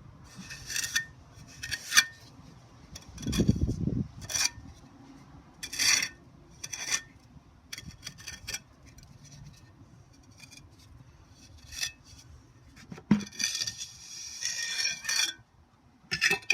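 Steel trowel scraping mortar into and across a patch in a brick wall: a series of short, irregular scraping strokes. A dull low thump comes about three and a half seconds in.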